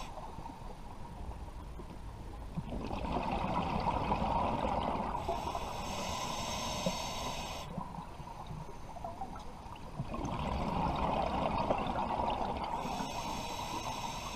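Scuba diver breathing through a regulator underwater: long bubbling exhales alternate with hissing inhales, about two full breaths.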